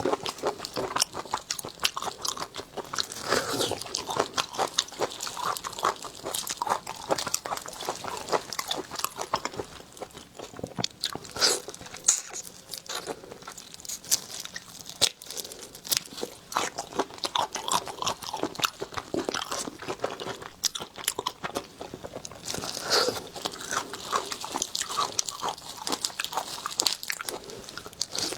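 Close-miked chewing and biting of seafood: a steady run of wet, crunching bites and mouth smacks.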